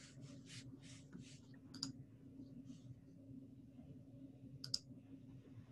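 Faint clicking over a low steady hum, heard through a video call's open microphone, with two sharp double clicks, one about two seconds in and one near the end.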